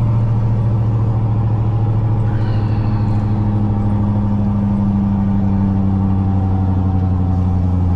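Loaded Scania log truck's diesel engine running steadily at about 1800 rpm under light throttle in 9th gear, retarder off, with a slight rise in pitch around the middle.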